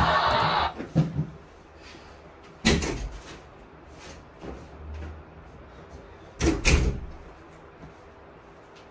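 Music and crowd noise cut off suddenly in the first second. Then scattered knocks and bangs of a door being opened and shut in a small room: one just after the cut, one about three seconds in, and a louder double bang past six seconds.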